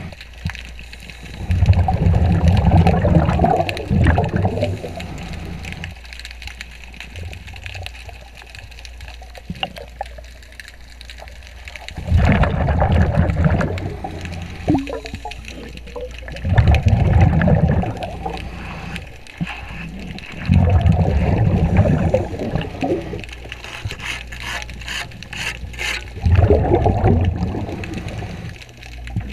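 Scuba diver's exhaled bubbles gurgling out of the regulator underwater, in five bursts of two to three seconds each, with quieter breathing-gear hiss between them.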